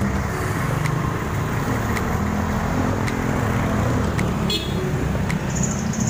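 Street traffic: jeepneys and motorcycles passing at low speed, their engines running with a steady low rumble and road noise.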